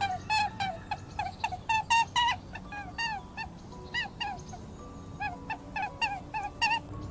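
Rapid series of short, squeaky animal calls, several a second, each a brief rising-and-falling squeak, over faint background music.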